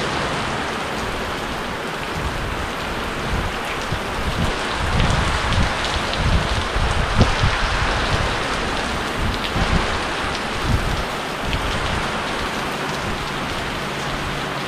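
Steady rain falling, with a low rumble swelling and fading through the middle.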